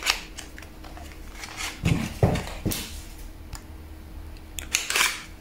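Small paperboard makeup box being opened and handled: a few short scattered rustles and taps, clustered about two seconds in and again near the end.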